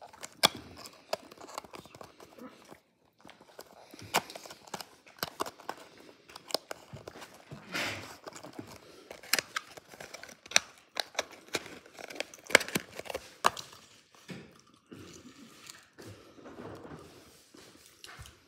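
Scattered sharp clicks, taps and crinkling as a small cardboard box and a die-cast toy car are handled on a granite countertop.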